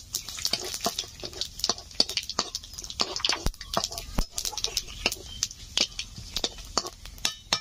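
Whole cumin seeds, dried red chillies and a bay leaf spluttering in hot oil in a kadai: many sharp, irregular pops over a steady high sizzle.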